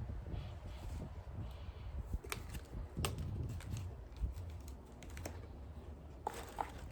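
Scattered light clicks and taps, a few seconds apart, from small items and packaging being handled.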